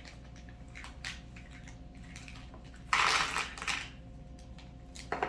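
A small pack of screws and mounting hardware being handled: a loud rustle about three seconds in, with a few light clicks of the small metal parts.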